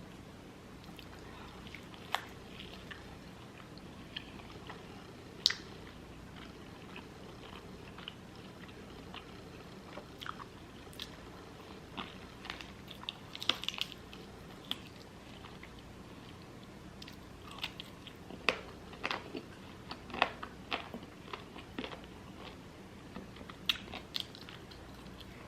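Close-miked eating: chewing and biting, with scattered short crunchy clicks that come thickest around the middle and again in the later part.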